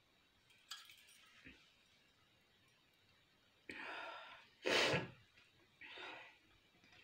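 A person's breath, close to the microphone: a breathy sigh about halfway through, then a louder, sharper burst of breath, then a shorter breath near the end, with a few faint clicks before them.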